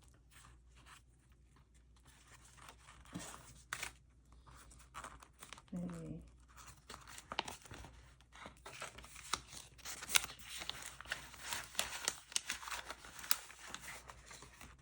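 Paper tracker sheets and binder envelopes being handled, crinkling and rustling with small clicks, busier in the second half.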